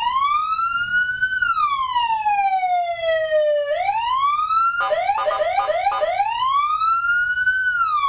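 Aftermarket police-style (patwal) electronic siren fitted to a Yamaha NMAX scooter, sounding its long pattern. A wail rises and falls, rises again, breaks into a quick run of about five short yelps around the middle, then rises and falls once more.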